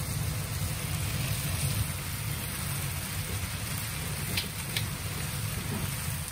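Gas stove burner running under a skillet of cheese dak-galbi: a steady low rumble of the flame with the food sizzling in the pan. Two faint clicks about four and a half seconds in.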